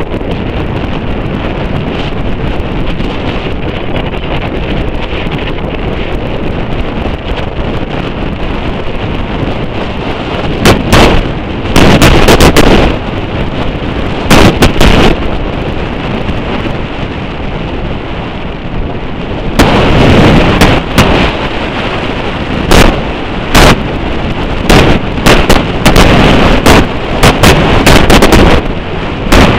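Wind buffeting the microphone of a camera in a moving vehicle: a steady rushing noise with sudden louder blasts that overload the recording. The blasts come about ten to fifteen seconds in and again around twenty seconds, then as quick repeated spikes near the end.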